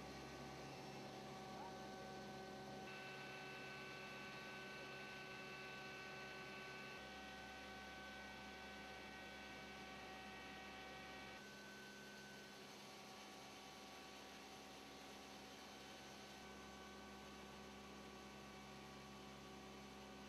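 Faint steady hum made of several held tones. Its mix of tones changes abruptly a few times, with no other events.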